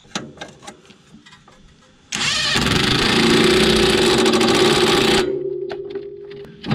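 A few light knocks of parts being handled, then a power impact wrench hammering for about three seconds, tightening the bolts at the bottom of the front strut. Its motor whine lingers and fades once the hammering stops.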